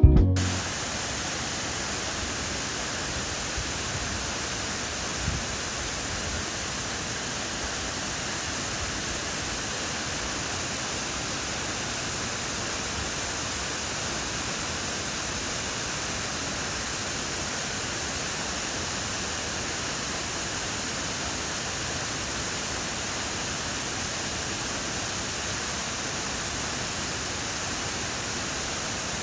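Waterfall heard from its base: a steady, unbroken rush of falling water.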